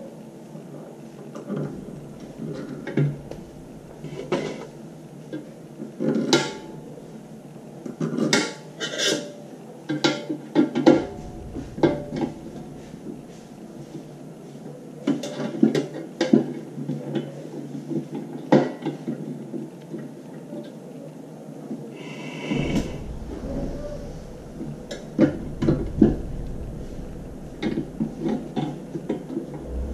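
Metal parts being handled and fitted by hand as a geared motor is mounted on a stainless-steel filter lid: scattered, irregular clicks, knocks and clinks.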